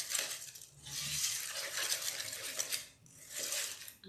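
Wire whisk beating thick egg-yolk batter in an enamel bowl: quick scraping, rattling strokes against the bowl in three spells with brief pauses.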